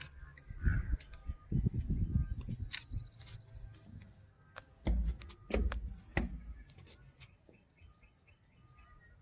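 Low rumbling and a few sharp clicks from walking with a hand-held camera on a trail, with faint, evenly repeated bird chirps near the end.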